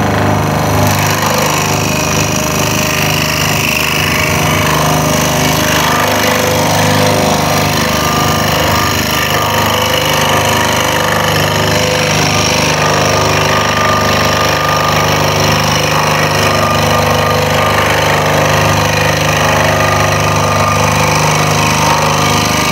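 Scroll saw running steadily, its blade reciprocating rapidly as it cuts tight curves in a wooden board.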